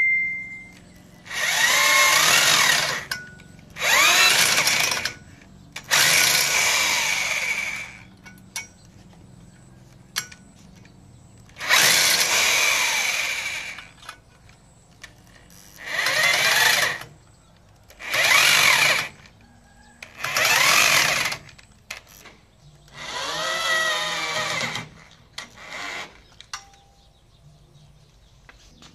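Corded electric drill fixing the steel base bracket of a satellite-dish mount to a wall, run in about eight short bursts of one to two seconds. The motor's pitch rises and falls with the trigger in each burst.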